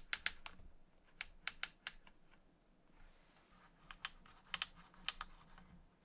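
Depth-of-cut dial on a Bosch GHO 18V cordless planer clicking through its detent steps as it is turned, in quick runs of a few clicks with short pauses between.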